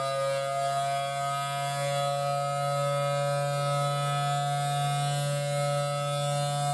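Federal Signal Thunderbolt 1000T siren sounding its steady Alert signal: a sustained two-tone wail from the rotating horn at full pitch, with a steady low hum underneath.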